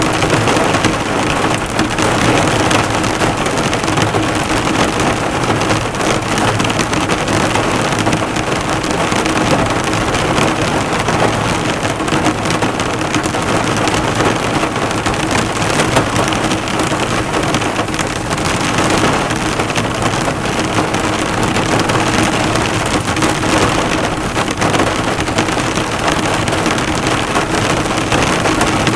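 Heavy rain pelting a car's bodywork and hood, a dense, steady patter of drops bouncing off the metal.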